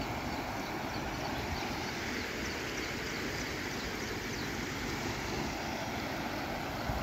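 Swollen, muddy floodwater rushing over a low road crossing: a steady, even rush of water.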